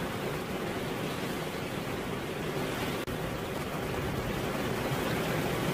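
Rain falling steadily, an even hiss with no distinct drops standing out.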